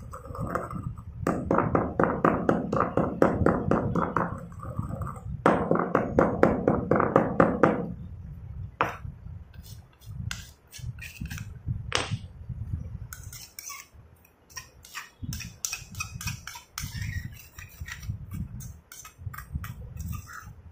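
Stone pestle pounding chalk in a stone mortar: fast, dull strikes about five or six a second with two short breaks, stopping about eight seconds in. After that, quieter grinding and scraping in the powder with scattered light clicks.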